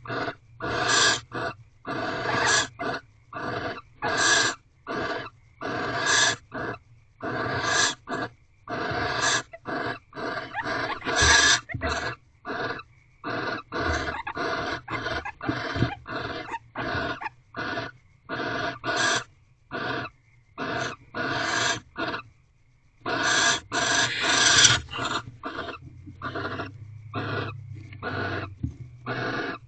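A mating pair of barn owls in a nest box giving a long series of harsh, hissing calls, about one or two a second, with a louder run of calls about 23 seconds in.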